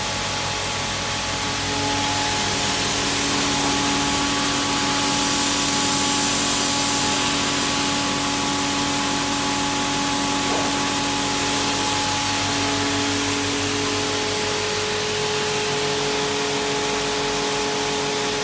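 The high-pressure spray gun of a self-service steam car wash machine spraying a steady jet: a continuous loud hiss, with the steady whine of the machine running beneath it.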